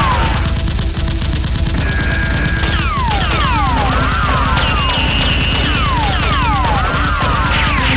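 Dubbed automatic gunfire sound effects: a continuous fusillade of rapid shots, with many short falling whistles, like bullets whizzing past or ricocheting, laid over the firing.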